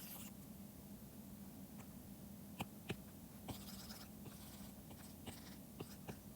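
Faint stylus pen on a drawing tablet: scattered sharp taps and short scratchy strokes, over a steady low hum.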